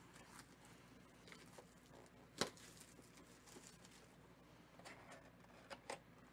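Faint handling of a shrink-wrapped cardboard trading-card box: plastic wrap crinkling and tearing and the lid flap being pulled open, with a few sharp clicks, the loudest about two and a half seconds in.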